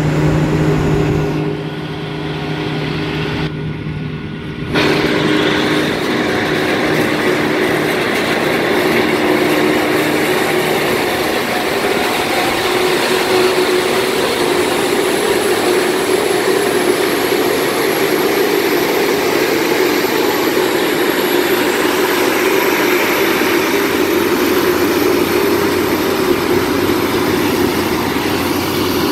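Krone BIG X 1180 forage harvester's V12 engine and chopper running steadily under load while harvesting maize, a loud even hum. There is a brief dip in level about two to five seconds in, and a thin high whine joins about halfway through.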